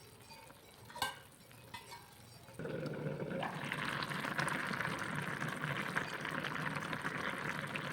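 A single metal clink about a second in. Then, about two and a half seconds in, loud bubbling and sizzling of food cooking in a pan starts suddenly and goes on steadily.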